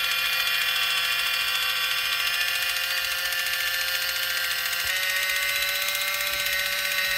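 Kitchen Mama battery-powered electric can opener running on top of a can, its small motor whirring steadily as it cuts around the lid; the pitch steps up slightly about five seconds in.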